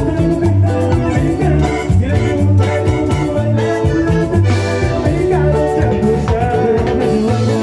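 Loud Latin dance music with a steady, repeating bass beat, filling a dance hall.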